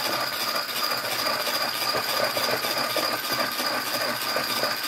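Electric hand mixer running steadily as its beaters whip eggs in a bowl: a continuous motor whir with a steady high whine on top.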